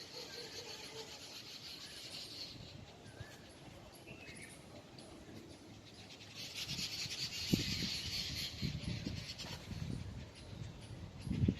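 Birds chirping outdoors with a high, steady buzzing that swells near the start and again from about six seconds in. Low thumps and rumble join in the second half.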